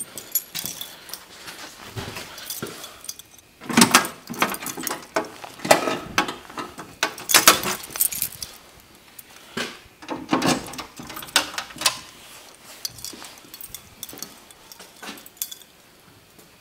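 Irregular jangling, clinking and knocking of small hard objects being handled, loudest in a few clusters between about 4 and 8 seconds in.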